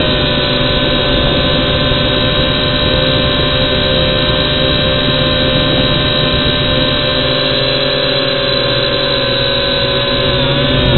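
Motors and propellers of a WLtoys V686 quadcopter whining steadily as it hovers, picked up close by its onboard camera; the pitch dips briefly near the end.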